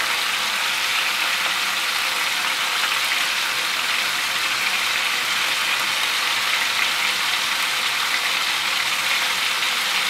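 Veal escalopes sizzling in butter and oil in a frying pan: a steady, even hiss.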